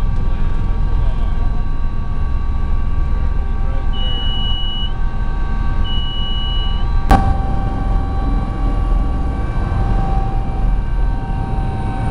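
Sikorsky helicopter running steadily: a loud low drone with several steady whining tones. Two high beeps of about a second each come about four and six seconds in, and a sharp click about seven seconds in.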